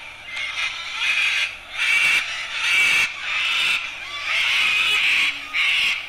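White cockatoo calling: a series of short, loud calls, a little more than one a second.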